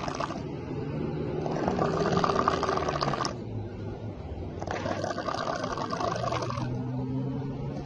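A sleeping person snoring, a snore likened to a tiger's growl. Each harsh, rattling snore lasts about two seconds and comes roughly every three seconds, with a lower, steadier hum between them.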